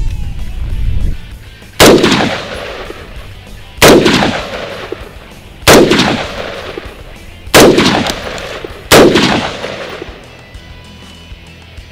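Five single shots from an AR-15 rifle firing tracer rounds, spaced about one and a half to two seconds apart, each followed by a long echo.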